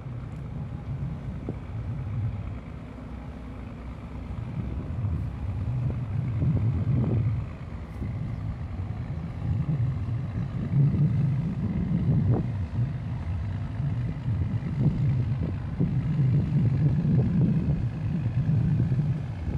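Low, uneven rumble of a small boat's engine as the boat passes close by, growing louder through the middle and second half, mixed with wind on the microphone.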